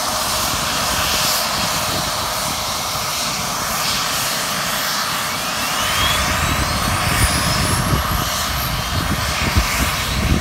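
Mil Mi-17-type military helicopter starting up: a steady turbine whine, then from about five seconds in a rising whine as an engine spools up, with a low rumble growing from about six seconds.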